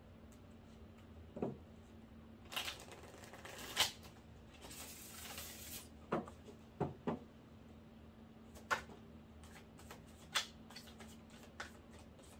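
A deck of tarot cards being shuffled by hand: two stretches of rustling shuffle a few seconds in, with a scatter of short sharp taps and knocks of the cards before, between and after.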